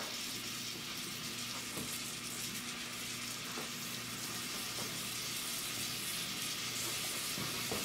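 Steady sizzling hiss of blackberries cooking down in a saucepan on the stove.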